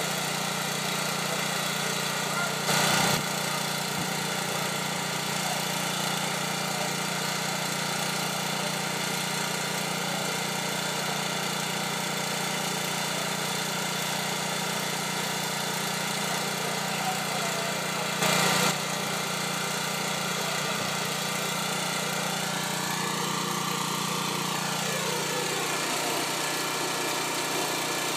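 Steady drone of fire trucks' diesel engines running. A brief louder burst of noise comes twice, a few seconds in and about two-thirds through, and a tone glides downward near the end.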